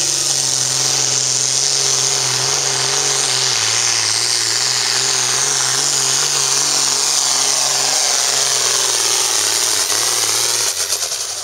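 Engine of a John Deere 4250 hot farm pulling tractor, a modified turbocharged six-cylinder diesel, running at full throttle under load while pulling a sled. A steady engine note carries a high whine over it, dipping slightly in pitch about a third of the way in and dropping off near the end.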